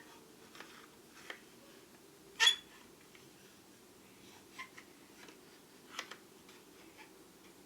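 Small metal lathe tools being handled from a toolbox drawer: a few faint clicks and one louder clink about two and a half seconds in.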